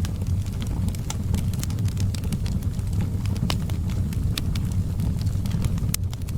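Wood fire burning in a fireplace: a steady low rumble of the flames with irregular sharp crackles and pops from the logs.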